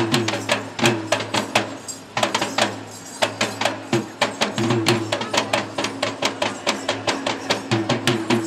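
Sri Lankan double-headed drum played by hand in a fast rhythm of sharp strokes, thinning to a sparser stretch about two seconds in before picking up again.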